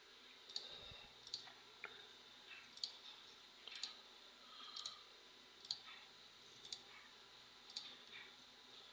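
Computer mouse button clicking about once a second, each a short sharp click, with faint hiss between.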